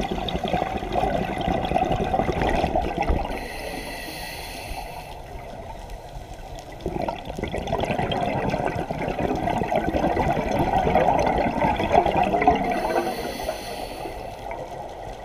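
Scuba regulator exhaust bubbles gurgling and rushing, heard underwater: a long burst of exhaled bubbles, a quieter stretch of a few seconds, then another long burst.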